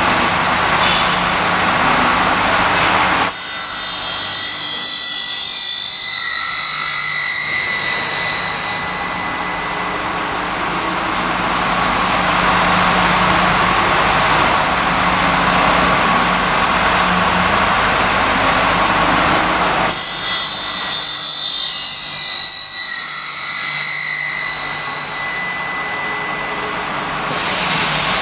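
KT-313F curtain wall end milling machine running with a steady noisy whir. Twice, about 3 seconds in and again about 20 seconds in, the low rumble drops away and high whining tones ring for several seconds, typical of the milling cutters working an aluminium profile.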